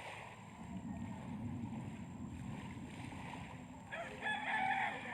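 A rooster crowing, one long call starting about four seconds in, over a steady low background rumble.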